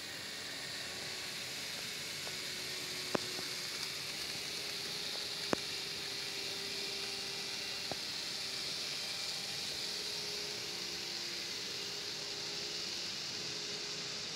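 N scale model freight train running: a steady hiss of many small wheels on the track with a faint steady hum from the locomotive motors, and three sharp clicks a few seconds apart.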